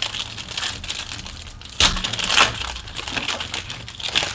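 Foil wrapper of a Panini Prizm World Cup card pack crinkling and tearing as it is pulled open by hand, loudest about two seconds in.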